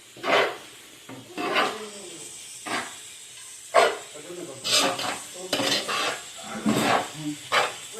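A spoon stirring and scraping cassava starch in a bowl just scalded with hot oil, in irregular strokes, with the hot oil sizzling.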